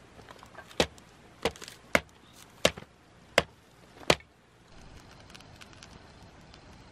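Wood being chopped with a blade: six sharp chops, about one every two-thirds of a second, stopping after about four seconds.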